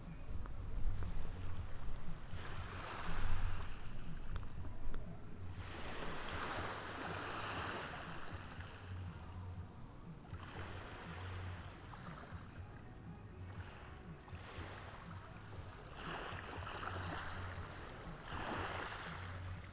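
Ocean surf breaking and washing up the shore, swelling and fading in several surges a few seconds apart.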